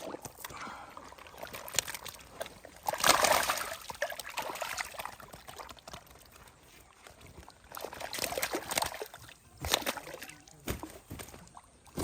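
Water splashing and sloshing in irregular bursts, loudest about three seconds in and again between eight and ten seconds in.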